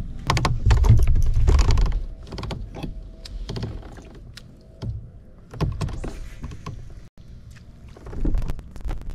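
Irregular knocks, clunks and rattles of fishing gear being handled on a kayak's hull, the heaviest in the first couple of seconds, with more around the middle and near the end.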